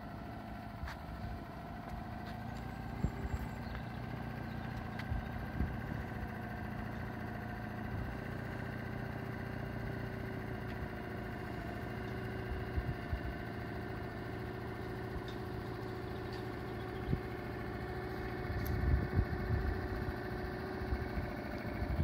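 Suzuki 2.5 hp single-cylinder four-stroke outboard motor running steadily at low speed on a small inflatable dinghy. A few low thumps come near the end.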